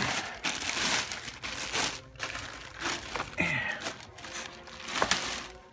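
Clear plastic bag wrapping crinkling and rustling in irregular bursts as it is handled.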